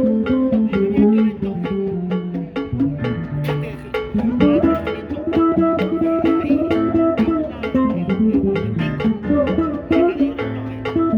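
Instrumental music led by plucked guitar notes over a bass line, with a steady rhythm of picked attacks.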